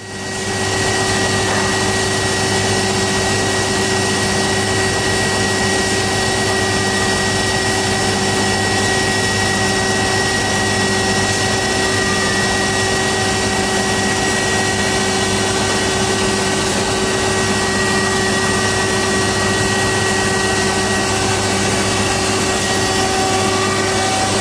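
Bütfering wide-belt sander running steadily: an even machine hum with several fixed whining tones over a noisy rush. Wooden boards are being fed through on its conveyor belt.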